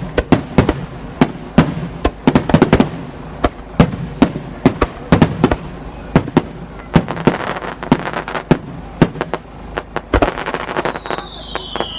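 Fireworks display: a dense, irregular series of sharp bangs from bursting aerial shells, several a second, each echoing, with a falling whistle near the end.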